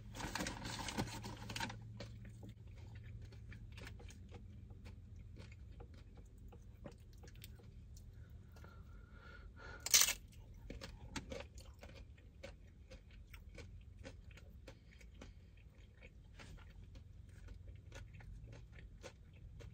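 A person chewing food with soft crunching and many small mouth clicks, louder for the first two seconds, with one sharp click about ten seconds in.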